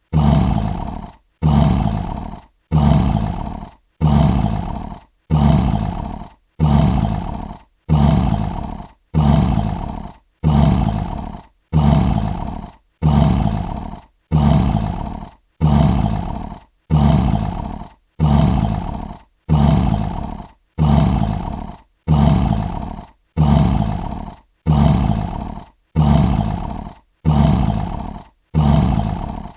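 Lion roar sound effect looped over and over: the same short roar repeats about every 1.3 seconds, each one starting loud and fading out, with a brief silence between.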